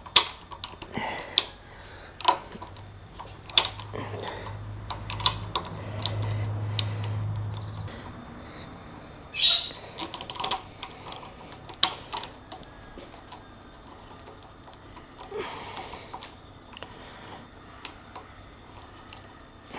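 Scattered small clicks and taps of hand-work as the top of a single-cable throttle housing is fitted onto a motorcycle handlebar, with a low steady hum for a few seconds near the start.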